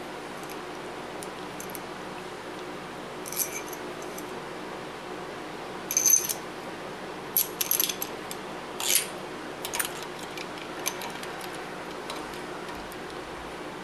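Small steel parts clinking and jingling against each other in short clusters, with bright ringing tones, over a steady background hum. The clinks are consistent with sockets and a bolt being handled and fitted together.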